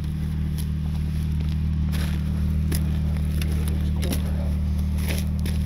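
A vehicle engine idling steadily, a low even hum, with a few scattered clicks and knocks over it.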